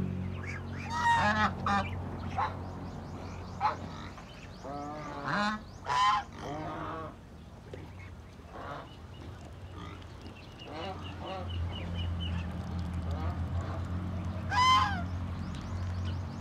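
A flock of young domestic geese and ducks calling while they feed, in short, noisy calls at uneven intervals; the loudest call comes near the end.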